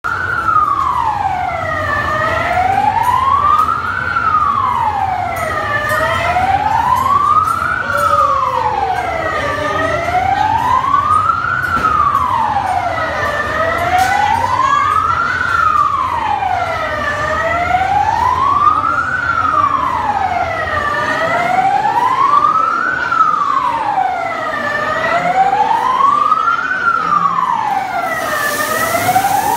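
Fire-engine siren wailing slowly up and down, about one rise and fall every four seconds. Near the end a hiss of water spraying from fire hoses joins it.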